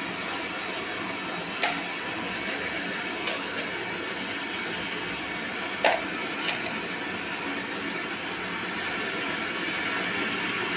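Steady mechanical running noise with a few sharp clicks or knocks, the loudest about six seconds in.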